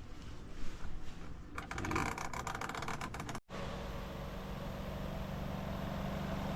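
A short run of rapid clicking and rattling, then the spin-dryer motor of a twin-tub washing machine running with a steady hum that grows slowly louder as the drum spins up.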